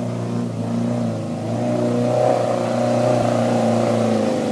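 Suzuki SJ-series 4x4's engine revving under load as it pulls up a steep dirt bank, the note growing louder and rising about two seconds in, then dropping slightly near the end.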